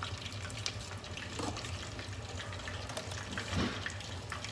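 Oil in a deep fryer sizzling and crackling steadily as battered chicken strips fry, over a steady low hum.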